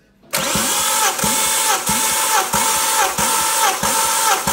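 A power tool, most likely an electric drill, whines steadily as it turns the crankshaft of a Volvo B5244S4 2.4-litre five-cylinder engine for a cold compression test. Its pitch sags with a low knock about one and a half times a second as the tested cylinder comes up on compression.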